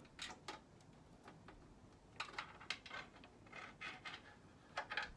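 SATA data cables being pushed and pulled through a routing hole in a PC case: scattered light plastic clicks and rubbing, loudest around two seconds in and again near the end.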